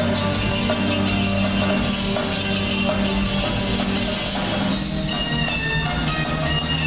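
Live rock band playing, with guitar over a drum kit.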